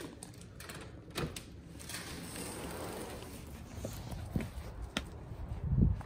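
Sliding glass door being opened, with scattered clicks and knocks from the latch and frame and a rolling rush as the panel slides, then a low thump near the end.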